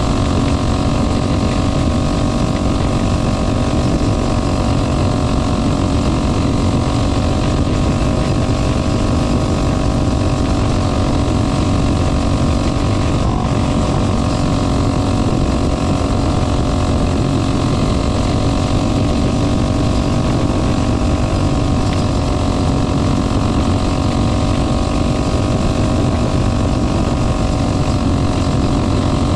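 Onboard sound of a dirt-track race car's engine running hard at nearly steady revs, the pitch barely changing, over a constant low rush of wind on the open cockpit.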